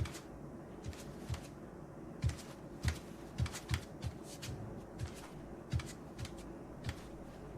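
A run of irregular light clicks and taps, roughly fifteen of them, many with a soft low thump under the click.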